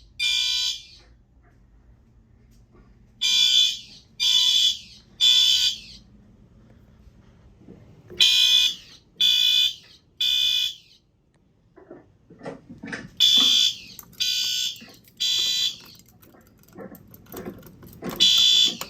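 Fire alarm horn-strobes, a Wheelock MT-24-LSM set to code-3 tone among them, sounding the temporal-three evacuation signal: three short, high-pitched beeps, a pause, then three more, repeating about every five seconds. This is the pattern of a fire alarm system in alarm after a pull station has been activated.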